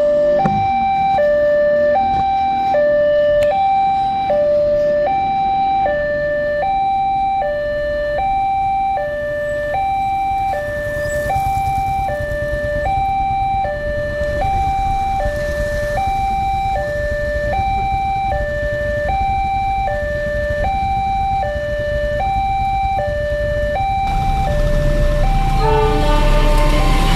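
Railway level-crossing warning alarm sounding a two-tone signal, switching evenly between a lower and a higher tone about once a second to warn of an approaching train. Near the end the alarm pattern breaks off and the low rumble of the approaching container freight train rises.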